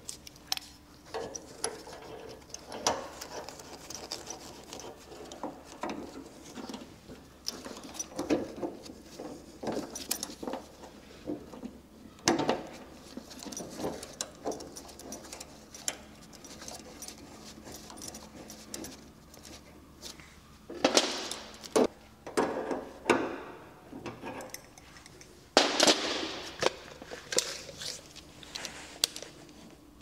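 Gloved hands fitting a filling valve onto brass boiler isolation valves and copper pipe tails: scattered small clicks, knocks and rubbing of metal fittings and gloves, with busier bouts of handling noise about two-thirds of the way through and again near the end.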